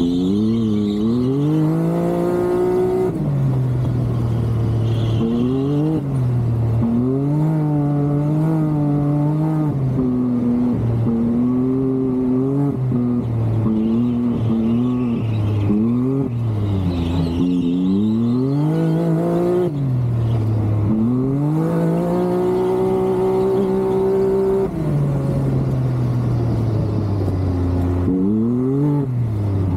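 Can-Am Maverick X3's turbocharged three-cylinder engine being driven hard, its revs climbing and falling back over and over as the throttle goes on and off between corners.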